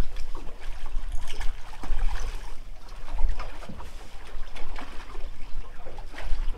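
Water splashing now and then as a hooked channel catfish thrashes at the surface beside a boat, over a steady low rumble of wind on the microphone.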